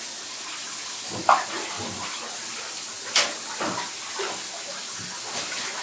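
Shower running into a bathtub, a steady hiss of spraying water. Two brief louder sounds stand out over it, about a second in and about three seconds in.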